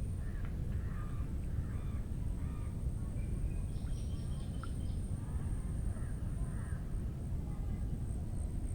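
Birds calling: scattered curving calls, with a quick run of short high notes about four seconds in. Under them run a steady low rumble and a thin, steady high-pitched whine.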